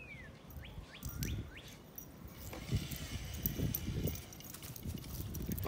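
Birds chirping a few short calls in the first second or so, then soft irregular thumps and rustling from about halfway in; the thumps are the loudest sound.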